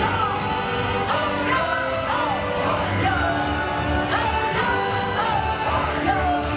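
Upbeat stage-show music with a sung vocal line over held chords and a steady beat.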